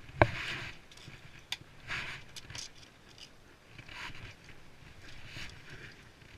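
A single sharp knock just after the start, followed by scuffing, scraping and a few light clicks: building materials being handled, moved and set down.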